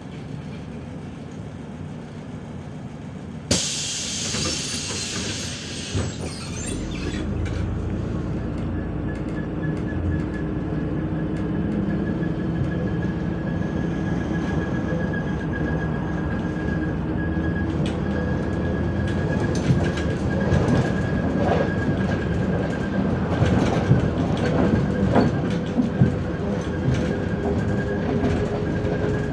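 Inside a MAZ-105 articulated city bus: a short loud hiss of compressed air about three seconds in, then the bus pulls away, its engine and drivetrain building up with a slowly climbing whine and the body rattling over the road.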